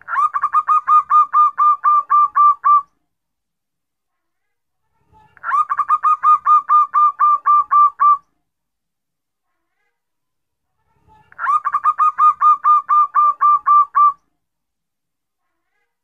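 Zebra dove (perkutut) singing its cooing song: three phrases, each a quick, even run of about a dozen short coos lasting just under three seconds, with a few seconds' silence between phrases.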